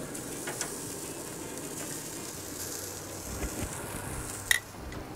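Chicken sizzling on a pellet grill's grate with a steady hiss, as metal tongs lift a piece off. A few light clicks and one sharp click about four and a half seconds in.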